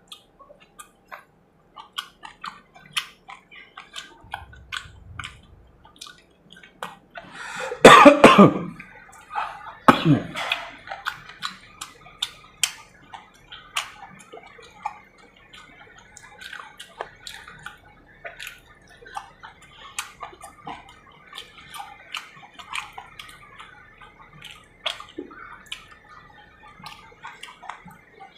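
Close-miked eating sounds: wet chewing and sharp mouth clicks while eating fried chicken gizzards and liver, with a loud cough-like burst about eight seconds in and a shorter one around ten seconds.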